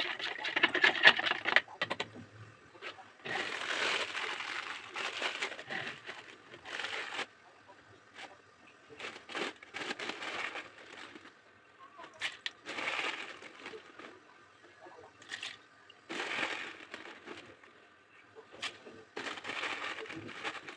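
Metal spoon scraping and clinking quickly against a plastic jug for the first two seconds. This is followed by several short crackling, rattling pours a few seconds apart: spoonfuls of caustic soda (sodium hydroxide) flakes being tipped into the plastic jug.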